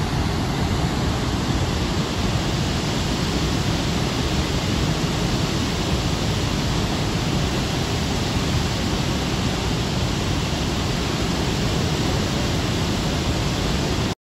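Niagara Falls, a steady, dense rushing of falling water with no changes in it; it cuts off suddenly near the end.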